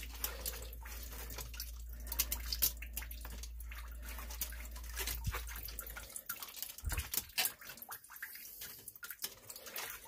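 Scattered small metallic clicks of a stainless worm-drive hose clamp being wrapped around a PVC sump pump discharge pipe and started on its screw, with water dripping into the sump crock. A steady low hum runs underneath and stops about six seconds in.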